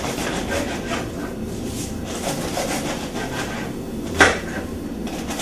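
Kitchen counter work: dishes and utensils knocking and scraping in a run of light clatter, with one sharp, louder knock a little past four seconds in.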